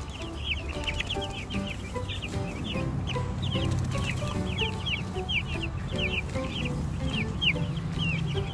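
A flock of young meat chicks peeping continuously: many short, high, falling peeps, several a second.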